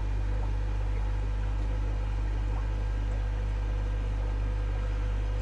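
Steady low hum of aquarium air pumps running the tanks' air-driven sponge filters, with a faint hiss over it.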